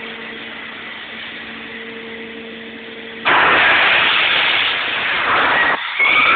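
Rebuilt Sullair 16-100 air compressor running with a steady hum. A little over three seconds in, a loud rushing noise starts suddenly and breaks off briefly near the end.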